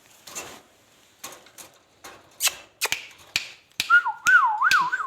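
Ringneck parakeet making a string of sharp clicks and taps, then a warbling whistle that wavers quickly up and down, beginning a little before the end. The owner takes the bird's mood for anger.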